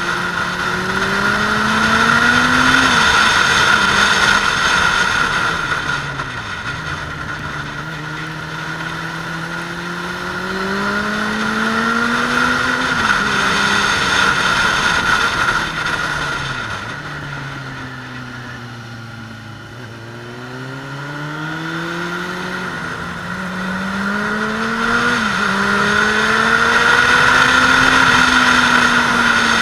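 Suzuki Bandit 600S inline-four motorcycle engine accelerating under load, its pitch climbing and dropping sharply at each upshift. Around the middle it falls away as the bike slows, then pulls up through the gears again near the end.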